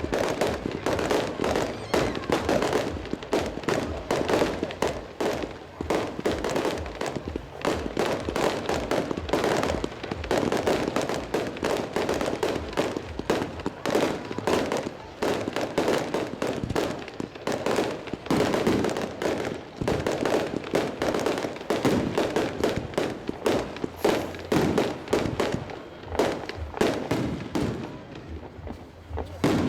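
Fireworks display: a dense, continuous barrage of bangs and crackling in rapid succession, thinning out slightly near the end.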